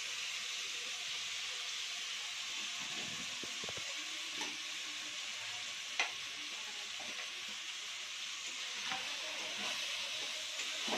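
Tomato-and-spice curry masala frying in oil in a pan with a steady sizzle, cooked down to the point where the oil separates. A spoon stirs it, with a few clicks against the pan; the sharpest comes about six seconds in.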